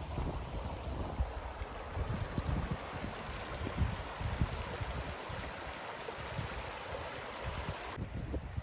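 Rushing water with a steady hiss, with wind buffeting the microphone in low, uneven gusts; it stops suddenly near the end.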